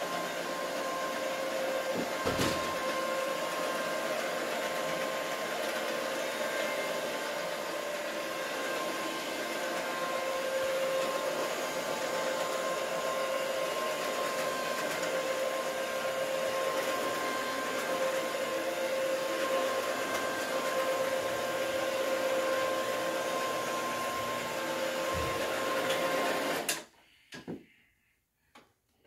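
Electric upright carpet machine running steadily with a constant whine over a rushing hiss, with a single knock about two seconds in. The motor then shuts off abruptly near the end.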